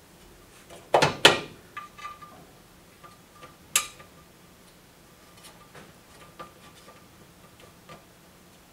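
Metal clicks and clinks of screws and a metal TV-mount bracket being handled as the screws are turned in by hand: two louder clicks about a second in, a sharp one near four seconds, then faint scattered ticks.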